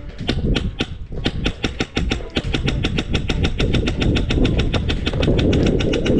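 Airsoft rifle firing on full auto: a fast, even rattle of shots at about ten a second, with a couple of short breaks early on before it runs on steadily.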